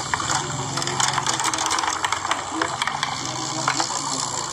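Rapid, irregular clicking and clattering of small plastic and wooden parts as a K'nex-built chain-reaction contraption runs.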